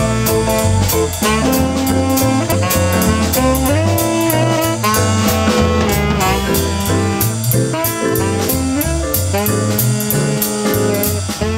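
Background music: upbeat jazz with saxophone and brass over a bass line and a drum kit keeping a steady beat.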